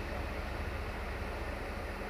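CFR class 82 (LDH 1360) diesel-hydraulic locomotive running with a steady low engine rumble as it rolls slowly along the platform.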